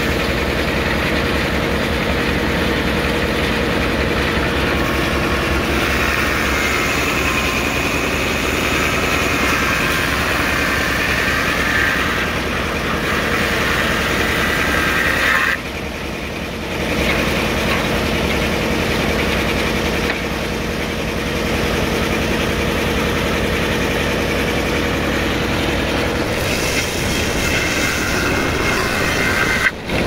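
A 109-year-old belt-driven circular sawmill running under a steady engine drone. Its big toothed blade cuts through a log with a higher whine for about ten seconds in the first half and again briefly near the end.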